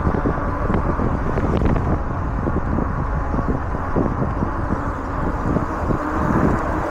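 Wind buffeting a body-worn action camera's microphone in strong wind, a steady low rumble that rises and falls.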